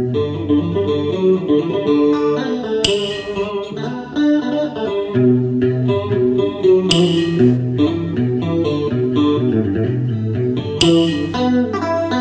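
Fender electric guitar picking a cải lương melody over a steady low bass line, with a bright cymbal-like hit about every four seconds.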